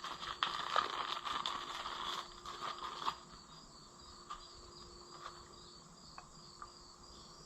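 Rustling and small clicks of hand handling for about the first three seconds, then crickets chirping in a steady, even rhythm.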